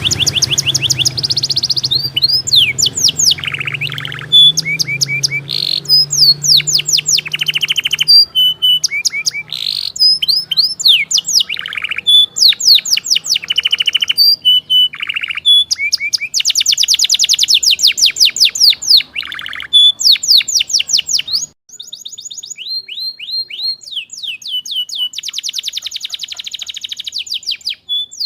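Canary song: fast rolling trills of repeated high, sweeping notes, changing from one trill to the next every second or two, played as a stimulus song to prompt canaries that have stopped singing. A low background hum underneath cuts off suddenly about three quarters of the way through while the singing continues.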